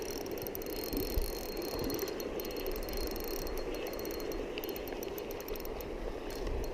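Ultralight spinning reel being wound in, a faint rapid clicking, over the steady rush of stream water.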